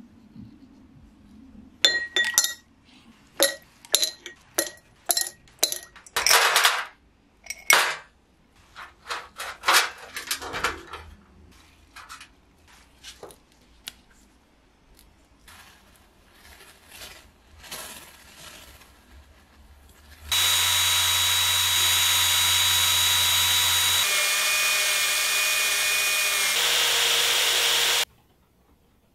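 Small metal parts and tools clinking in a quick series of sharp clicks, then, about twenty seconds in, an ultrasonic cleaner running with a loud steady buzzing hum that shifts in tone twice and cuts off abruptly near the end.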